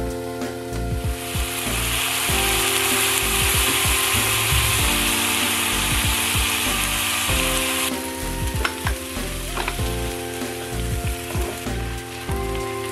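Flourless carrot pancake frying in an oiled pan, sizzling loudly from about a second in, then the sizzle drops off suddenly near eight seconds and a few light utensil taps follow.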